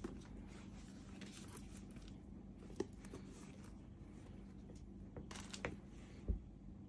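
Quiet handling noises from a woven leather handbag being lifted by its strap and set down on its cloth dust bag: a few short clicks, and one dull thump a little past six seconds in. A faint steady hum sits underneath.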